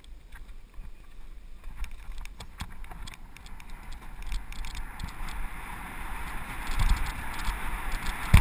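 Mountain bike riding down a dirt downhill trail, heard from a camera on the bike: tyres rolling over dirt and the bike rattling in quick clicks, with a rush of wind building from about halfway as speed picks up, and heavier thumps over bumps near the end.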